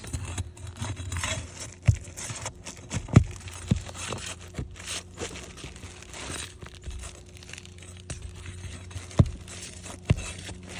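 Asphalt shingle being pried loose and lifted from the roof: scraping and tearing sounds with irregular sharp knocks and clicks, the loudest a few seconds apart. The shingle's seal strip is broken, so it comes up easily.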